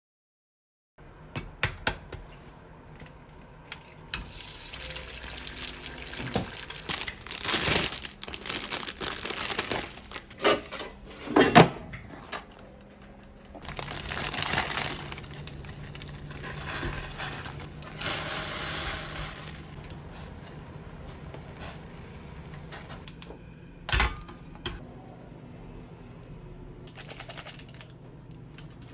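Household handling noises: irregular rustling and crinkling with scattered light clicks, and one sharp knock about 24 seconds in.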